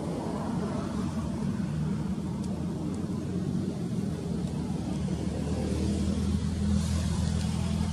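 An engine running steadily: a low rumble with a few held low notes, growing somewhat louder in the second half as if drawing nearer.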